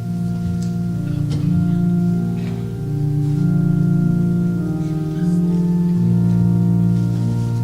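Organ playing slow, sustained chords, starting suddenly at the beginning.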